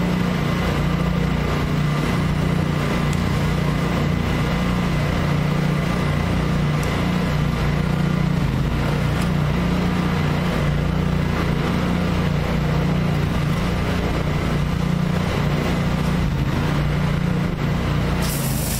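Pressure washer's engine running steadily at a constant speed. Near the end a loud hiss of high-pressure water spray starts as the rotary surface cleaner is switched on.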